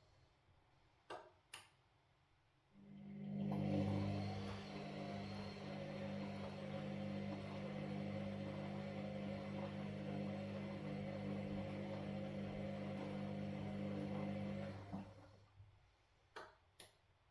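Washing machine in its wash cycle: the drum motor starts about three seconds in, runs with a steady hum for about twelve seconds, then winds down and stops. Two short clicks come before it starts and two more after it stops.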